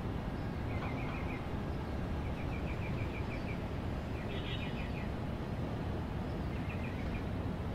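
Outdoor ambience: a steady low background hiss, with small birds chirping in about five short, rapid trills spread across it.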